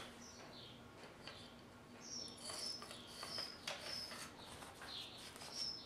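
Small birds chirping in short, high notes, several a second in the middle stretch, with faint clicks and scrapes from a rifle cleaning rod being handled.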